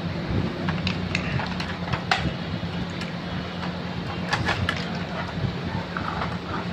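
Scattered clicks and light rattles of plastic parts as an Epson L130 printer's ink damper assembly and print-head carriage are handled, with a cluster of clicks about four seconds in, over a steady low hum.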